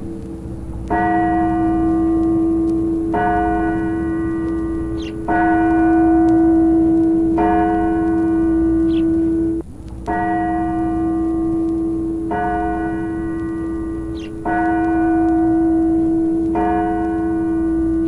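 Clock tower bell striking the hour: eight strokes about two seconds apart, each ringing on into the next. A brief dropout between the fourth and fifth strokes is the tape splice joining two recordings of the bell striking four.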